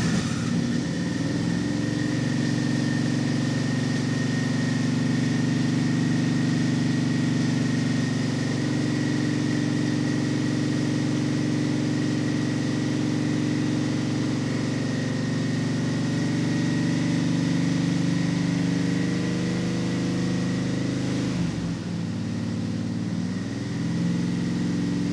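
Chevrolet 327 small-block V8 running steadily at a fast idle, just fired up for the first time in over 30 years and fed by a temporary electric fuel pump. A thin steady whine runs above the engine note, and about 21 seconds in the revs dip and come back up.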